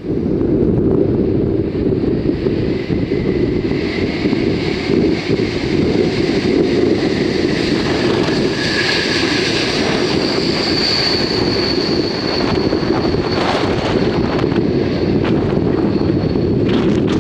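Strong wind buffeting the microphone, a steady low rumble, with the thin high whine of an arriving jet airliner's engines faintly over it, clearest in the second half.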